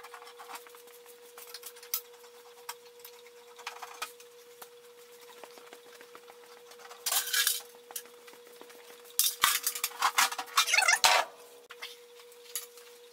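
Tools and screws clinking and rattling against a treadmill's metal frame and motor housing as it is taken apart, with scattered light clicks. A louder burst of rattling and scraping comes about 7 s in, and another from about 9 to 11 s, over a faint steady hum.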